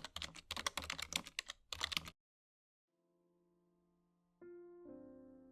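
Rapid computer-keyboard typing clicks for about two seconds, stopping abruptly. After a short silence, soft piano music begins about three seconds in, with louder chords struck near the end.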